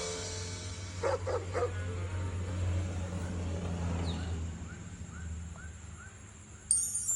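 Dog giving two or three short barks about a second in, over a steady low hum.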